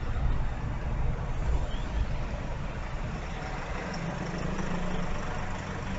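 Steady low rumble of a car's engine and tyres on the road, heard from inside the cabin through a dashcam. A low hum joins in about four seconds in.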